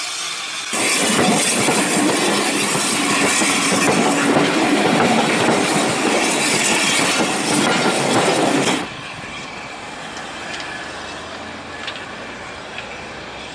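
Austerity saddle tank steam locomotive and its coaches passing close by, loud with a dense rush of exhaust and steam, wheels running over the rails. About nine seconds in it cuts abruptly to the train running further off, much quieter.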